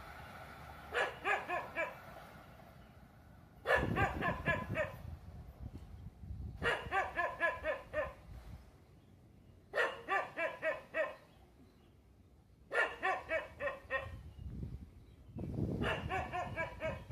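A dog barking in bouts of quick, rapid-fire barks, about six bouts with a pause of a second or two between each.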